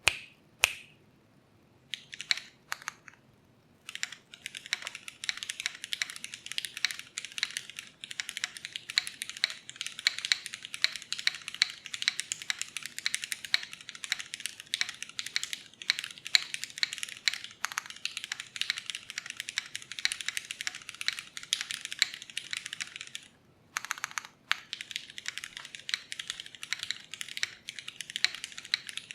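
Typing on a Kohaku R2 mechanical keyboard with Cherry MX Nixie switches (lubed, filmed and spring-swapped) on an aluminium plate, under GMK keycaps. A few separate keystrokes come first, then fast continuous typing, broken by a short pause about 23 seconds in before the typing resumes.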